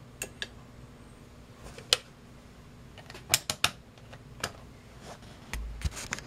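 A run of sharp clicks and light knocks from equipment being handled on a workbench as the soldering station and multimeter are switched off, with a duller thump near the end.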